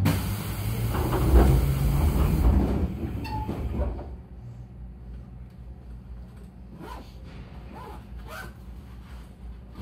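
A loud hiss of air lasting about two and a half seconds aboard a JR Kyushu 811 series electric train standing at a platform. After about four seconds it drops to a quieter steady hum with a few faint knocks.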